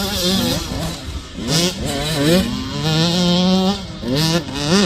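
Motocross dirt bike engine revving, the pitch rising sharply with the throttle and dropping back several times, with a steadier held stretch in the middle.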